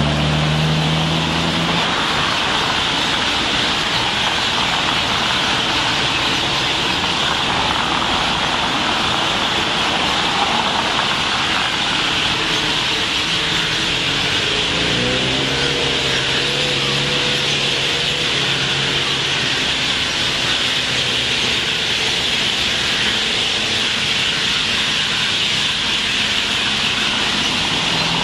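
Steady, dense chatter of a large flock of roosting birds in roadside trees, with passing vehicle engines underneath: one near the start and another from about 12 to 20 seconds in.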